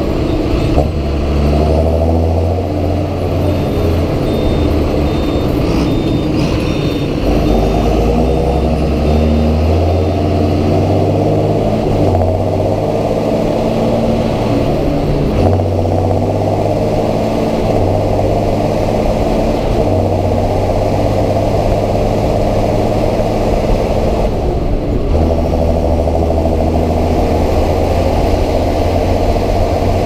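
John Deere 7530 Premium tractor's six-cylinder diesel engine running loud under load, heard close to its exhaust stack while pulling a 3000-gallon tanker of slurry. The engine note dips and climbs again several times.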